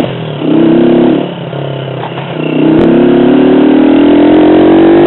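Honda CG Titan motorcycle's single-cylinder four-stroke engine pulling away under throttle. The revs dip for a gear change in the first couple of seconds, then climb steadily through the rest.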